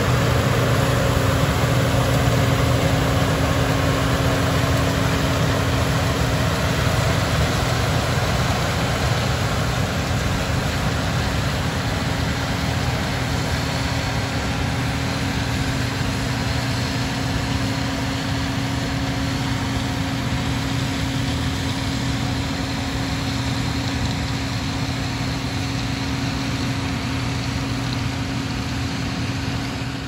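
Case IH 2388 combine running steadily under load while harvesting soybeans: a constant low engine drone mixed with the noise of the threshing and separating machinery. It grows slightly fainter as the combine pulls away.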